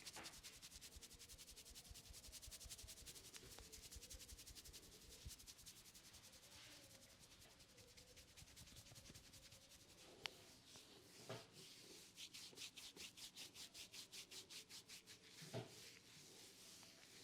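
Faint brisk rubbing of hands over hair and scalp in a head massage: a long run of quick strokes, settling into an even rhythm of about four or five a second in the later part, with three short sharp clicks.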